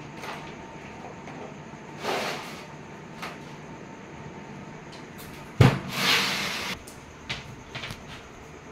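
Handling noises from working on a plastic-wrapped split AC indoor unit: a sharp knock about five and a half seconds in, a couple of short rustling swishes, and a few small clicks.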